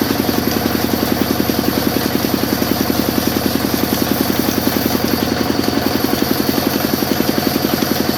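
Sawmill machine running steadily with a fast, even throb that does not change.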